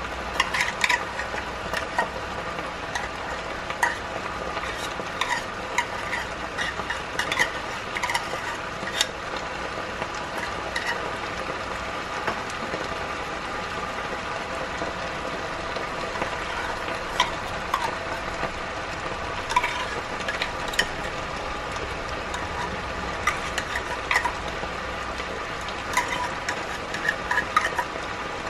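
Pork and vegetables sizzling steadily in a frying pan, with scattered clicks and scrapes of a metal spoon against a tin can as liver spread is scooped out into the pan.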